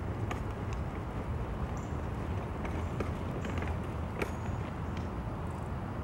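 Hummingbird giving a few short, high chip notes over a steady low rumble.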